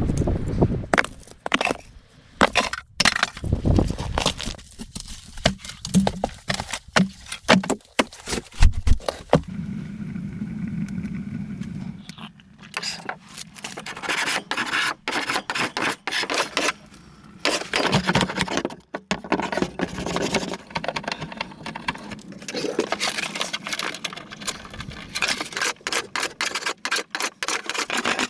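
Irregular clicks, knocks and scrapes of objects being handled and worked by hand, with no steady machine or voice behind them.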